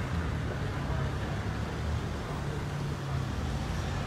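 Steady street background noise: a low, even rumble of road traffic.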